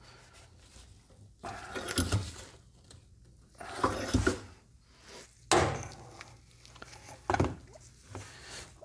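Hand work with tools and car parts: a few scrapes and clattering knocks, the sharpest a single knock about five and a half seconds in.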